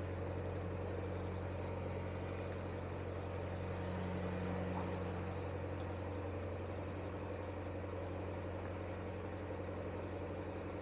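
Narrowboat's diesel engine running steadily at a slow cruising speed, a low, even drone that swells slightly about halfway through.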